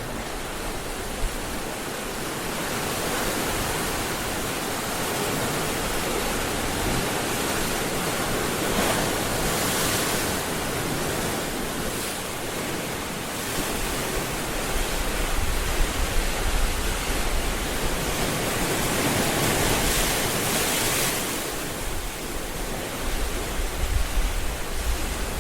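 Ocean surf: a steady rush of waves breaking on a beach, swelling louder about ten seconds in and again about twenty seconds in.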